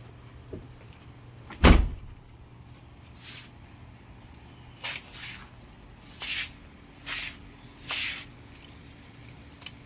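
Ram ProMaster cargo van's rear door shut with one loud thud about two seconds in, then a few short rattling clicks from the door's lock and handle as the newly rewired door lock is tested.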